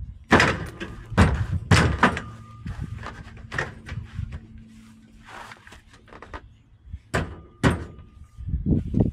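Loud knocks and clanks of steel cage parts being handled and fitted, several sharp hits with quieter rattling between them, the loudest in the first two seconds.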